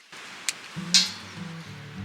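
Soft background music comes in just before a second in, with two sharp clicks, the second and louder one about a second in.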